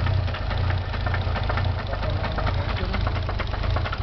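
Nissan 300ZX twin-turbo's 3.0-litre V6 idling with a steady, rapid knock from the engine, which the owner thinks could be a bearing.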